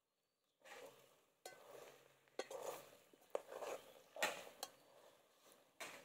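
Steel spoon stirring thick mashed jackfruit in a metal pot, mixing in coconut oil: soft squelching scrapes through the mash, with several sharp clinks of the spoon against the pot. It starts about half a second in.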